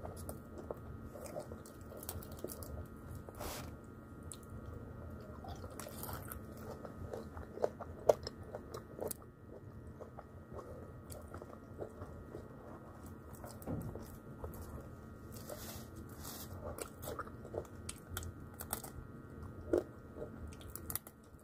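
A person biting and chewing crispy fried chicken, with irregular crunches and mouth sounds throughout and a couple of sharper, louder crunches partway through.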